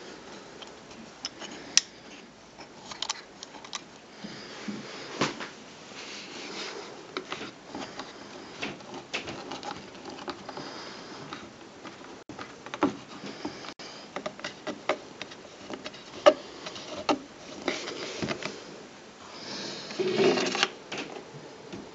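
Handling noise: irregular clicks, taps and knocks as a hand moves over and grips a vintage metal cine-projector desk lamp, with a louder stretch of rubbing near the end.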